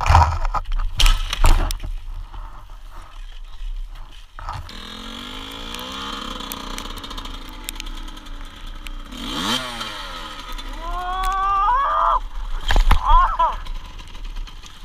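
Clattering knocks of a dirt bike going down in the first two seconds. Then a dirt bike engine running and revving, its pitch climbing sharply a few times in the second half.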